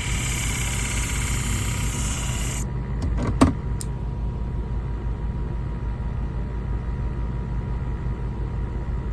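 Motor of a flat-wheel sharpening machine running steadily, with the hiss of a shear blade grinding on the 600-grit wheel that stops about two and a half seconds in as the blade comes off. A single sharp click follows about a second later.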